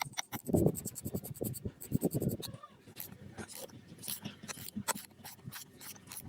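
Clicks, scrapes and light knocks of hand work on electric motor parts, with a rapid run of even ticks about a second in.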